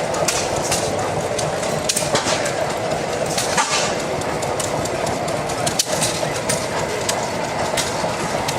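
Steady mechanical engine noise with irregular sharp clicks and knocks running through it.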